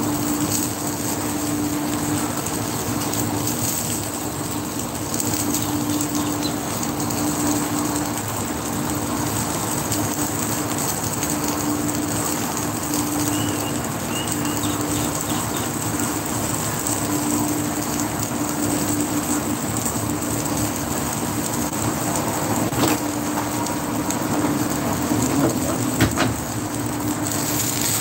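Slices of meat sizzling on a hot electric griddle: a steady hiss, with a low hum that comes and goes. A few clicks near the end as a spatula slides under the meat.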